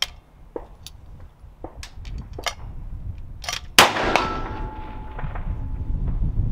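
A single suppressed rifle shot about four seconds in, from a 6.5 Creedmoor KRG bolt-action rifle fitted with a SilencerCo Harvester Big Bore suppressor, with a decaying tail after it. A few light clicks come before the shot.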